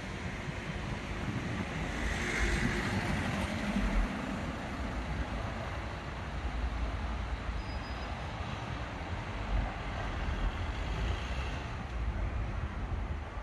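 Street traffic noise, a steady wash of passing vehicles swelling slightly about two seconds in, with wind rumbling on the microphone.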